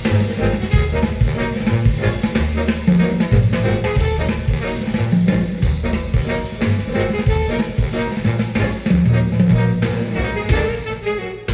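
Instrumental jazz with saxophone, brass and drum kit over a moving bass line, played back through Marten loudspeakers.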